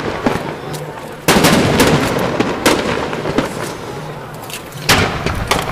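Fireworks going off: irregular sharp bangs with a rolling echo after them. The loudest comes about a second in and another big one near the end.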